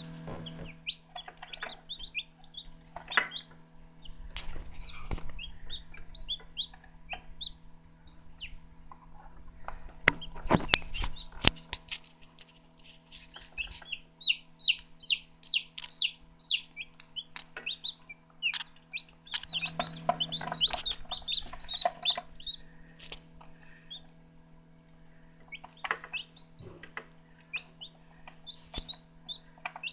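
Newly hatched green-egg (cheonggye) chicks peeping: runs of short, high chirps, fastest and loudest in a quick series about halfway through and again a few seconds later. A steady low hum runs underneath, with a few knocks about a third of the way in.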